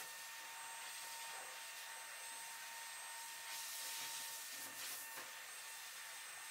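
Straight grooming scissors snipping through a dog's fluffy coat, faint against a steady background hiss, with two brief louder swishes about halfway through.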